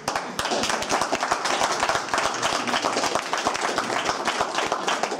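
Applause: a group of people clapping their hands in quick, uneven claps.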